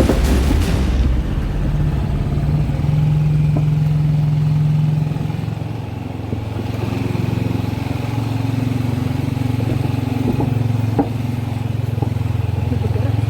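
Motorcycle engine running steadily while riding, with rushing noise over the microphone at the start. About five seconds in the engine note drops to a lower pitch as the bike eases off, then holds steady.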